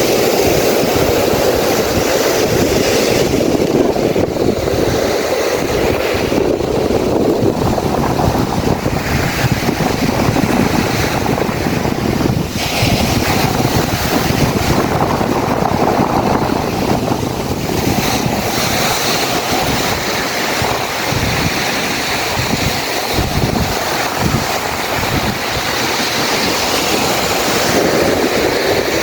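Surf washing on a beach, with wind buffeting the microphone in irregular low gusts.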